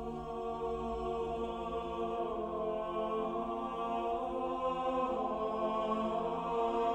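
Music of long held, drone-like tones that swell slowly louder.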